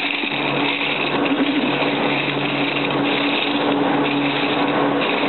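Steady running of machinery: a constant hum with a hiss over it, unchanging throughout.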